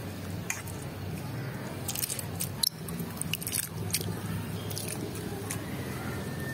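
Roasted mung dal being washed by hand in a steel bowl of water: wet lentils squishing and crackling between the fingers, with handfuls dropped into a pan of hot water. Scattered clicks throughout, the sharpest a little under three seconds in.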